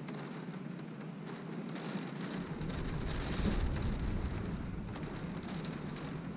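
Wind-driven rain beating steadily on a window. A deep rumble of wind sets in about two and a half seconds in and swells briefly.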